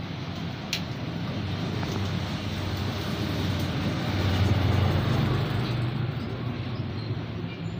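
Road traffic with a motor vehicle engine running close by, swelling louder about halfway through and then easing off. A single short click sounds under a second in.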